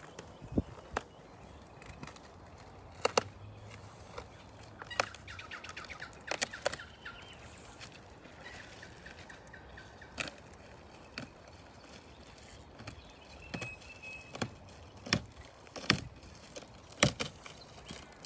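Scattered sharp clicks and taps from the kayak's packaging being handled and opened, with birds chirping in the background.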